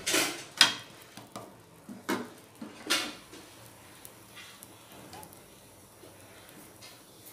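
A wooden spatula knocks and scrapes against a nonstick tawa a few times in the first three seconds while a beetroot paratha is laid flat on the hot pan. After that comes a faint, steady sizzle as the paratha cooks.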